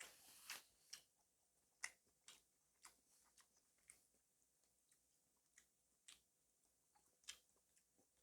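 Close-miked chewing: soft, wet mouth clicks at an uneven pace of roughly two a second.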